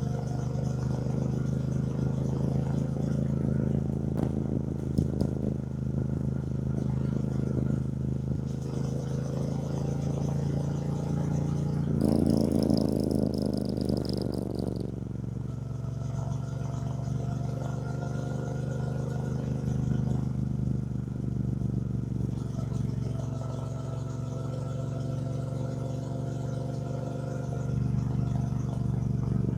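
2024 Triumph Bonneville T120's 1200 cc parallel-twin engine running steadily under way, its pitch rising and falling gently with speed. A louder, noisier stretch of about three seconds comes near the middle.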